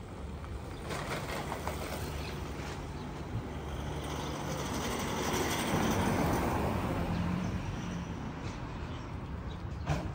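A motor vehicle passing by on the street, its engine and tyre noise swelling to a peak about six seconds in and then fading away.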